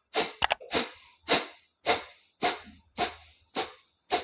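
Forceful nasal exhalations of single-nostril kapalbhati, blown out through the left nostril with the right one pressed shut. They come as sharp, short puffs of air at an even pace, a little under two a second, each one cut off quickly.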